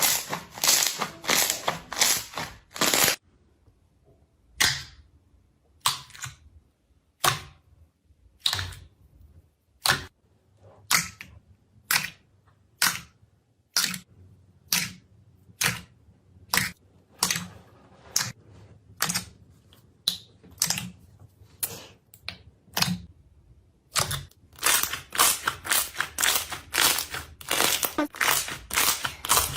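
Slime being played with, giving sharp clicking pops: a quick run at first, then single pops about once a second, then a quick run again near the end.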